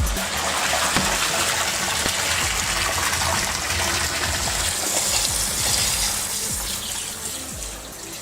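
Water gushing in a steady rush, as floodwater is let in against a flood door under test. It fades away near the end.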